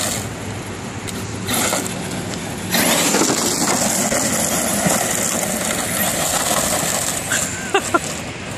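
HPI Super 5SC Flux 1/5-scale RC short-course trucks running hard on loose dirt: brushless electric motor whine and tyres churning gravel, louder from about three seconds in. Two brief rising chirps near the end.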